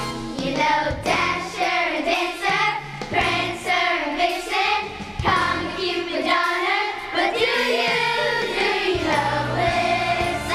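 A children's choir singing a Christmas song with instrumental accompaniment.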